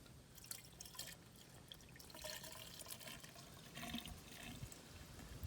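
Faint trickling and dripping of marine antifreeze as the inboard engine's block is filled, with a few small clicks.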